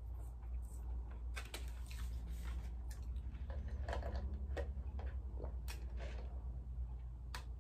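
Sipping a drink through a straw from a foam cup, with scattered sharp mouth clicks and lip smacks over a low steady hum.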